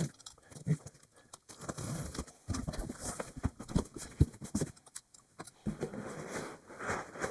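Cardboard box being opened by hand: packing tape slit with a utility knife, then the cardboard flaps scraping and rustling as they are pulled open, with a few short knocks.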